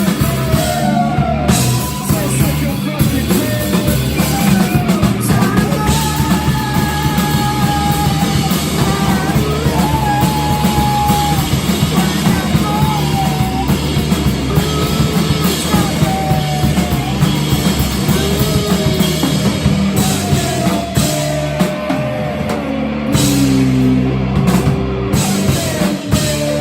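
A rock band playing live and loud, with a drum kit driving the beat and a wavering sung melody line over it.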